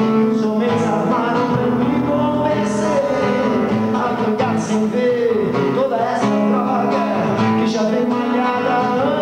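A man singing in Portuguese while strumming an acoustic guitar.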